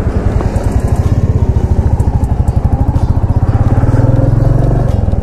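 Royal Enfield 350 single-cylinder engine idling with a steady, even thump.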